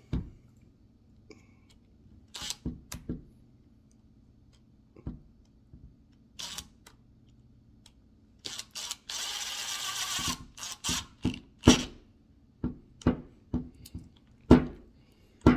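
Small drill driving a hex-head screw into an RC truck's plastic suspension arm: scattered clicks and knocks as the bit and parts are handled, then the drill motor runs for about a second and a half in the middle, followed by a few sharper clicks.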